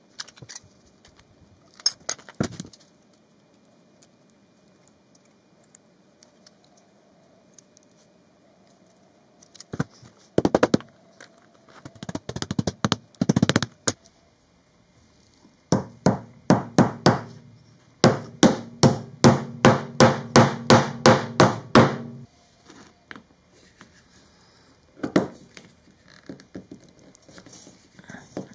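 Workshop tool sounds: metal snips cutting thin ductwork sheet metal, then a quick even run of hammer blows, about three to four a second, driving a sheet-metal-shimmed caster stem into a plywood block.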